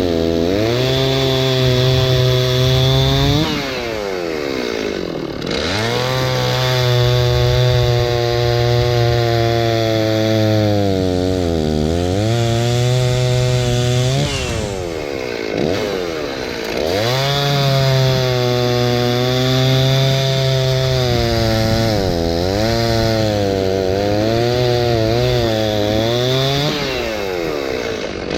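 Stihl chainsaw cutting through wood, its engine pitch sagging under load in each cut and climbing back as the chain frees up, several times over.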